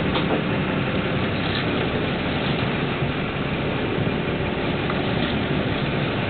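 A sportfishing boat's engine running steadily, mixed with wind and sea noise.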